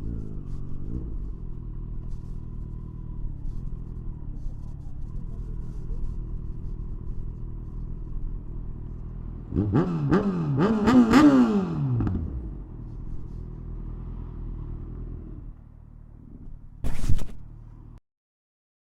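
Kawasaki Ninja 1000SX's inline-four engine idling, revved in several quick blips about ten seconds in, then settling back to idle. The engine note drops near the end, a brief sharp knock follows, and the sound then cuts off.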